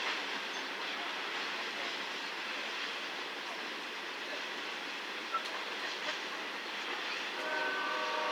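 Freight train cars rolling past on the rails with a steady rolling noise and a brief click about five seconds in. Near the end a locomotive's multi-note air horn starts to sound.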